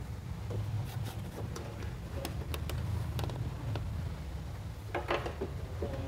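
Light clicks and rubbing of a plastic 2-pin wiring connector and its wires being handled and fitted, over a steady low hum.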